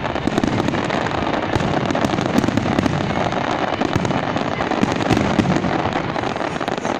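Large fireworks display: a dense, unbroken barrage of overlapping bangs and pops, many bursts going off close together without a pause.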